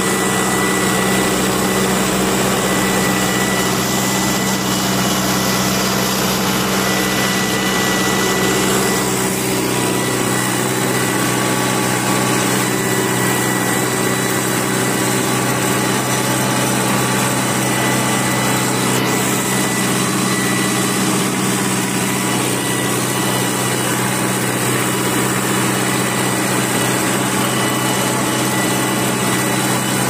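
Mahindra Arjun 555 Power Plus tractor's diesel engine running steadily under load, pulling an 11-tine cultivator with both lift levers fully down, in first gear high range.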